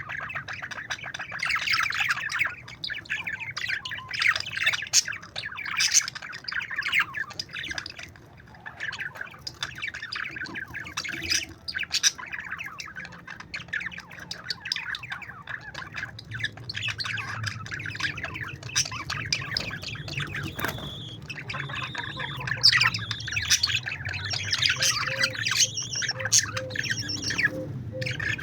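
A group of parakeets chattering, squawking and chirping all at once, with many calls overlapping without a break.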